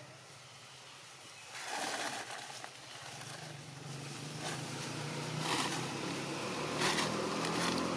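A motor engine running steadily at low pitch, growing louder through the second half, with several short bursts of noise over it.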